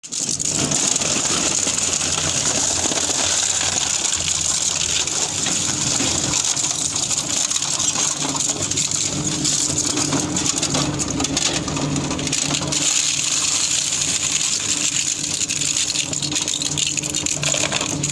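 Industrial shredding machine running: a steady motor hum under continuous noise, with the sound cutting over sharply at the very start.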